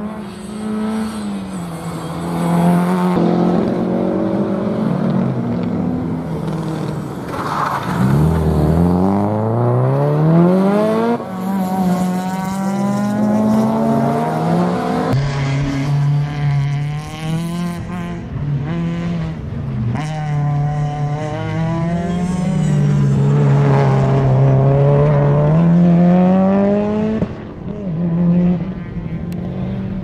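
Subaru Impreza WRX STI rally car's turbocharged flat-four engine driven hard on a race track. The engine note climbs as it revs and drops back at each gear change and lift-off, with a deep drop about eight seconds in followed by steep climbs.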